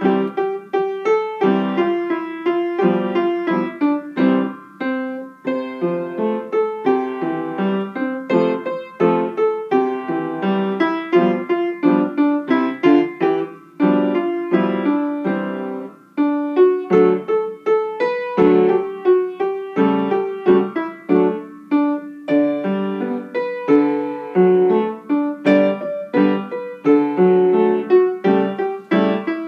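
Solo piano playing a simple tune at a steady pace, the melody over a lower accompaniment, with notes following each other without a break.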